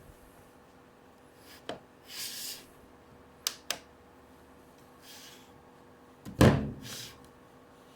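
Hands handling a small boxed rechargeable lamp and its packaging: scattered clicks, a couple of short rustles, and, about six seconds in, a thump that is the loudest sound.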